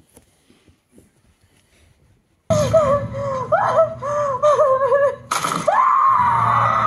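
A horror film's soundtrack plays a loud, wavering, eerie shriek that starts suddenly about two and a half seconds in, after a few faint rustles. Near the end it turns into one long, held, high cry over a low rumble.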